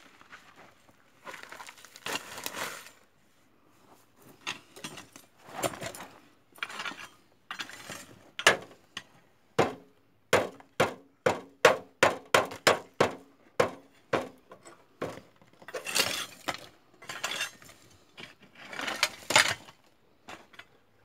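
A metal rod scraping and knocking on a rusty metal sheet, with a quick run of about a dozen sharp knocks, roughly three a second, around the middle.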